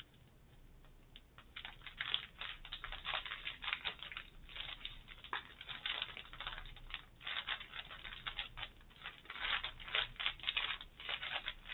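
Small plastic packets of diamond-painting drills crinkling and rustling as they are sorted through by hand: a quick, irregular patter of crackles that starts about a second and a half in.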